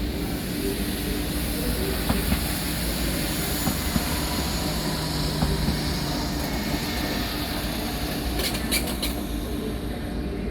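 A rail vehicle running past with a steady rumble, a few sharp knocks from the wheels, and brief high-pitched squeals near the end.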